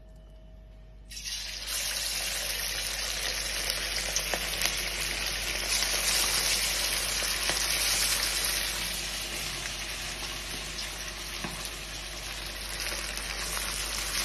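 Marinated chicken pakora pieces deep-frying in hot oil in a wok: a steady sizzle with fine crackling that starts suddenly about a second in.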